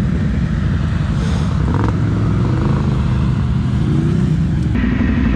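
ATV engine running steadily, its revs rising near the end.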